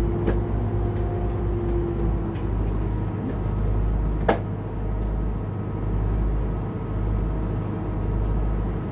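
Excursion boat's engine running steadily at cruising speed, a low, even drone, with one sharp click about four seconds in.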